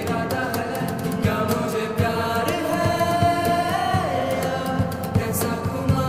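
Background music: a sung vocal line with long held notes over a steady percussion beat.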